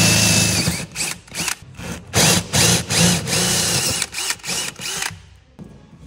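Cordless drill-driver running into the plywood floor of a caravan from underneath. A long run of the motor's whine is followed by a string of short trigger bursts, each speeding up and slowing down, which stop about five seconds in.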